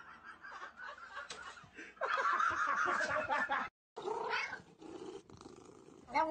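A husky vocalizing in a loud, wavering whine for about a second and a half, then, after a short break, a cat giving a few shorter rising and falling cries.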